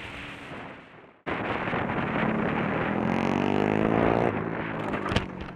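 Wind rush and vehicle noise fade and then cut off abruptly about a second in. An engine then accelerates, its note rising steadily in pitch for about two seconds before dropping out. A few sharp knocks follow near the end.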